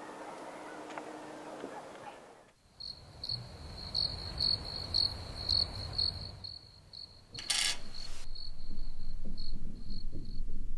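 Cricket chirping, a repeated short high note about twice a second, starting a few seconds in, over a low rumble. A brief loud burst of noise cuts across it about two-thirds of the way through.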